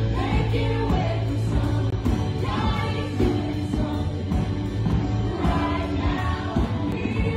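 Worship music: a group of voices singing over a band with a steady low bass.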